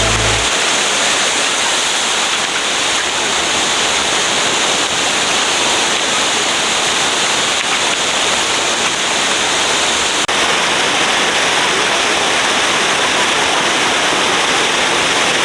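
River water rushing, a loud steady rush of flowing water with no pauses.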